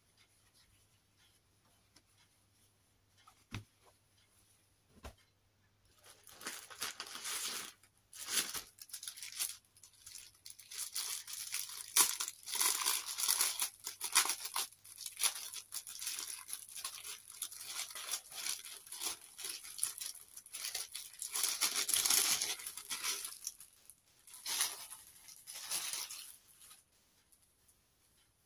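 Plastic packaging crinkling and tearing as a packet of fabric is opened and handled. After a few quiet seconds the rustling starts about six seconds in, irregular, loudest around the middle and again later, and dies away just before the end.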